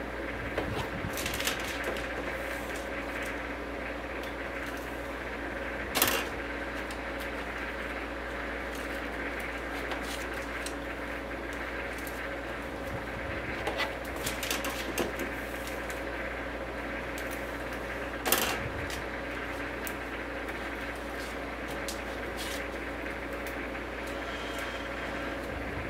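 DVD cases and plastic overwrap film handled at a DeltaWrap 200 overwrapping machine: scattered clicks, rustles and plastic clatters, with two sharper knocks, over a steady hum.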